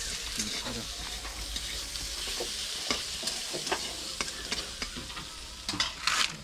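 A steady crackling hiss with scattered light clicks, and a louder scraping burst near the end, as a corrugated asbestos-cement roof sheet is carried, laid on dirt ground and shifted into place.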